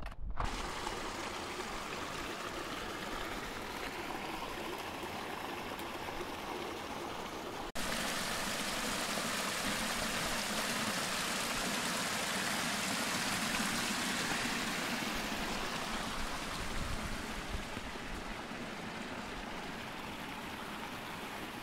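Mountain creek water rushing steadily. About eight seconds in it cuts abruptly to a louder, closer stretch of the same flow.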